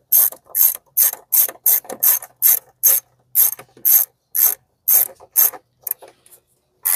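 Socket ratchet tightening an engine cover bolt, clicking in short rasping bursts about two to three times a second. The strokes stop about five and a half seconds in, with one last burst near the end.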